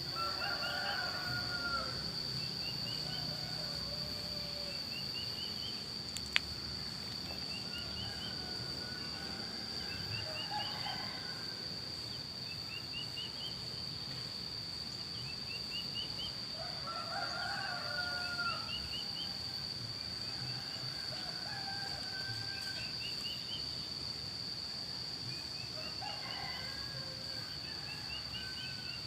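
Roosters crowing one after another, about four crows, over a steady high-pitched insect drone and short chirping calls repeated every couple of seconds. A single sharp click comes about six seconds in.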